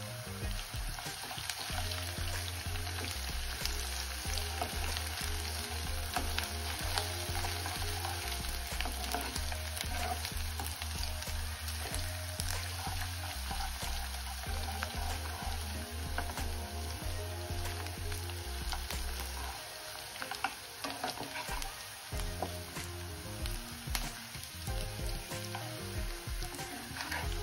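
Chopped onion, garlic and ginger sizzling as they fry in oil in a kadhai, with a steel spoon stirring and scraping against the pan in frequent small clicks.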